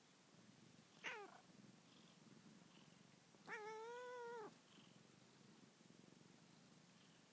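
Domestic cat meowing twice over a faint purr: a short, falling meow about a second in, then a longer meow of about a second that rises slightly and falls at the end. Sleepy complaining meows from a cat that does not want to wake up.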